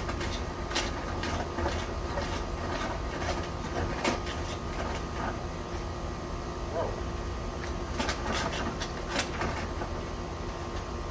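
Dryer-vent cleaning brush and its rods clattering and knocking irregularly against the vent duct as they are worked through the line, over a steady machine hum.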